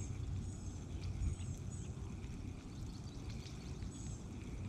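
Outdoor ambience: wind rumbling on the microphone, with faint high-pitched bird chirps a few times.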